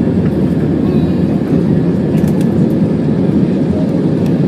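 Steady roar inside the cabin of an Airbus A320 in flight: jet engine and airflow noise heard from a window seat over the wing.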